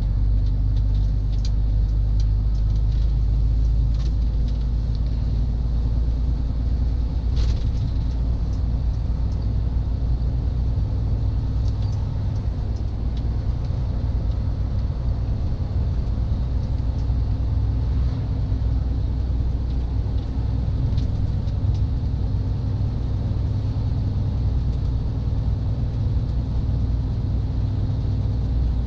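MAN truck's diesel engine and tyres rumbling steadily, heard from inside the cab while cruising at a constant speed, with a few faint clicks.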